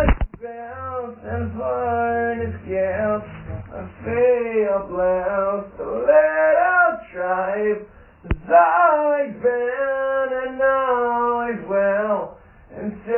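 A man singing, recorded as a phone voice memo, with a sharp click about eight seconds in.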